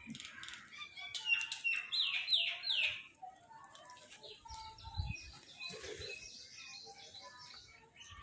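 Crows cawing: a quick run of harsh calls about a second in, with smaller birds chirping throughout and a low thump about halfway through.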